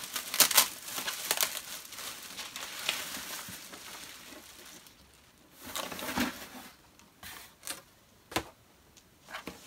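Clear plastic packaging bag crinkling as it is handled and pulled open, with cardboard packing rustling. Near the end come a few sharp knocks and clicks.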